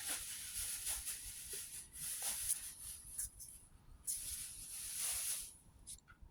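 Trading card booster pack being opened and its cards handled: irregular crinkling of the foil wrapper and cards rustling and sliding against each other.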